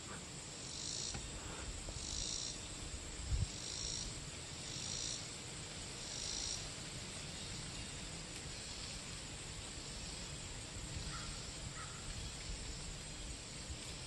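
Insects calling in short high-pitched pulses, about one every second and a quarter, over a steady high insect drone; the pulses fade out about halfway through. Low wind rumble on the microphone, with one dull bump about three and a half seconds in.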